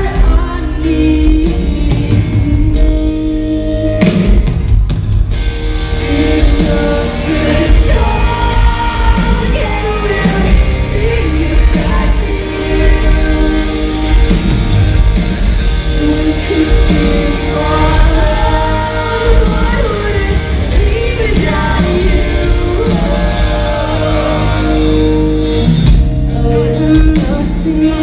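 Rock band playing live in an arena: distorted guitars, bass and drum kit under a female lead singer's sung melody, echoing in the large hall.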